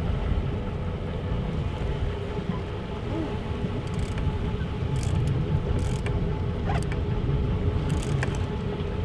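Fishing boat's engine running steadily under wind and sea noise, with a few sharp ticks on top.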